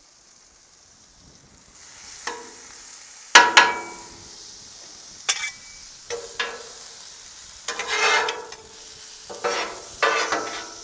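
Mushrooms sizzling on a Blackstone griddle's flat steel top while a spatula scrapes and turns them, with sharp scraping strokes every second or so, the loudest about three and a half seconds in. The first two seconds are quiet before the sizzle comes in.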